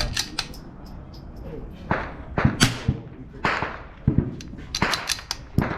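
A string of sharp cracks and clicks from a .22 rimfire rifle being fired and its action worked between shots. The loudest crack comes about two and a half seconds in, and several quicker clicks follow near the end.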